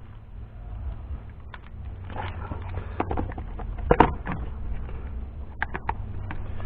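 Handling noises from an electrical lead and a plastic cable reel: scattered clicks and knocks, the sharpest about four seconds in and a quick cluster near the end, over a steady low rumble.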